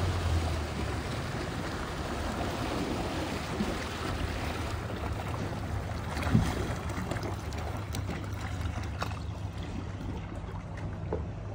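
Mercury 150 four-stroke outboard on a deck boat running with a steady low hum, with the hiss of water wash and wind that thins after about five seconds as the boat slows to come in. One short thump about six seconds in.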